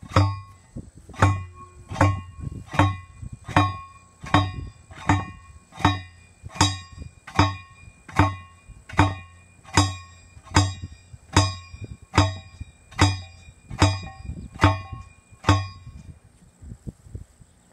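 An 80-pound two-handled steel post pounder slammed down again and again onto a wooden fence post, driving it into the ground. There are about twenty blows, a little under one a second, each a heavy clang with a ringing metallic tone. The blows stop near the end.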